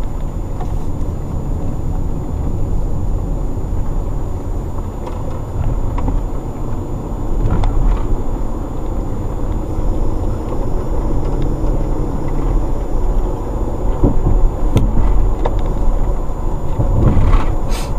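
Car interior road noise: engine and tyres give a steady low rumble as the car drives along, with a few brief clicks, the plainest near the end.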